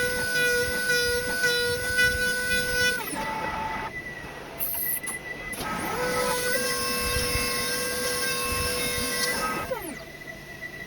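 CNC router spindle whining at high speed over a hissing cut while milling knife handles. About three seconds in the whine falls away as the spindle slows, it spins back up around six seconds, and it winds down again near the end.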